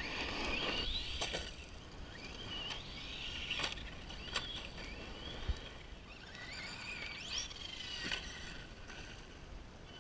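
Electric RC stunt trucks' motors whining, the pitch rising and falling repeatedly as the throttle is worked, with several sharp knocks of the trucks hitting the dirt.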